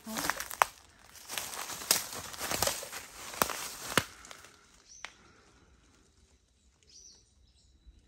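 Footsteps crunching through dry bamboo leaf litter, with sharp snaps of twigs or leaves, stopping about halfway through. After that it is quiet apart from a few faint high chirps.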